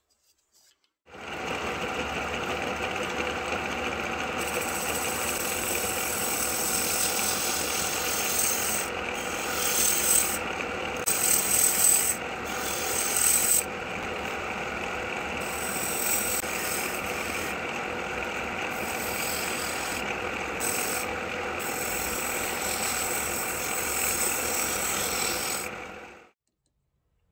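Wood lathe running while a turning tool cuts the spinning wood vase blank: a steady motor hum under a continuous scraping hiss of the cut. The cutting gets louder and more uneven for a few seconds in the middle, and the sound starts about a second in and cuts off sharply near the end.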